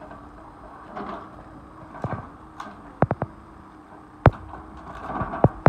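Tracked excavator's demolition grab tearing into a log flume's metal structure: sharp clanks and cracks, three in quick succession about three seconds in and the loudest just after four seconds, over the steady hum of the excavator's engine.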